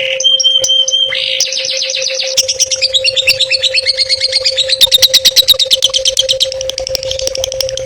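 A songbird singing fast, chattering trills of repeated high notes that switch from phrase to phrase, loudest in a rapid run about two-thirds of the way through. This is a tutoring ('masteran') song for training competition birds such as long-tailed shrikes. A faint steady hum runs under it.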